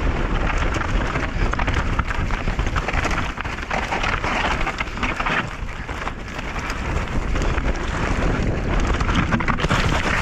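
Enduro mountain bike riding fast down a rocky trail: tyres rattling and crunching over rocks and loose stones, with wind buffeting the microphone in a constant low rumble.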